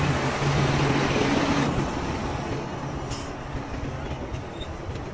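Steady motor-vehicle and road noise with a low engine hum, which fades and grows quieter about two seconds in.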